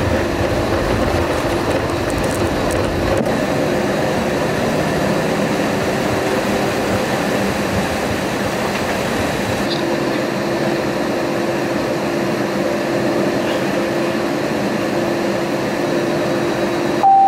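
Steady cabin noise inside an Airbus A320-200 as it taxis: a constant rush with a steady low hum. A brief single tone sounds right at the end.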